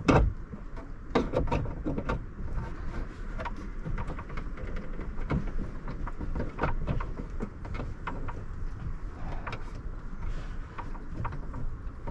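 Irregular clicks, knocks and scrapes of an oversized retaining clip being worked at by hand under a car's steering column. The sharpest knocks come right at the start and about a second in.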